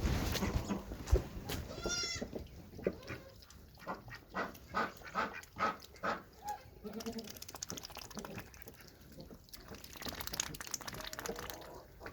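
Goats bleating: a short high bleat about two seconds in and a lower bleat around seven seconds. Between them comes a run of short crunching or knocking sounds.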